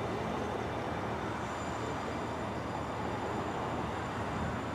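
Steady low rumble of a distant engine, with a faint high whine from about a second and a half in.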